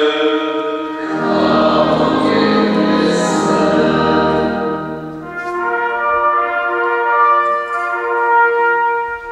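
Brass band playing slow music of long held chords.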